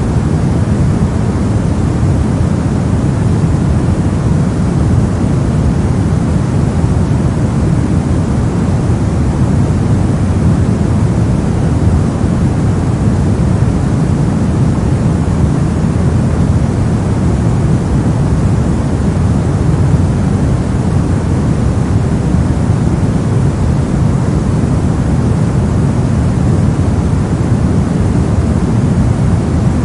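Steady brown noise: an even, deep rumbling hiss with most of its energy in the low end, unchanging throughout.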